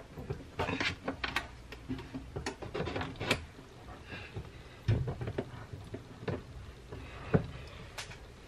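Irregular clicks and knocks of a rotisserie spit loaded with a whole chicken being worked into its sockets inside an Ultrean air fryer oven, with a couple of duller thuds.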